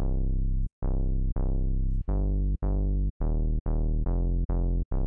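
A synth bass patch on Ableton's Analog: a pulse-wave oscillator set two octaves down and run through a low-pass filter. A low note is played about ten times, roughly two a second. Each note starts bright and quickly darkens as the filter envelope closes.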